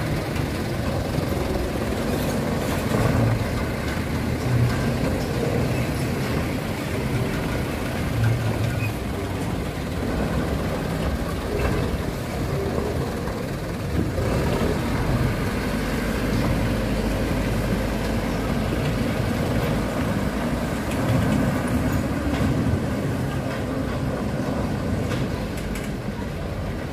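Diesel cargo truck engines running at low speed, the sound swelling and easing as the trucks pull through deep potholes.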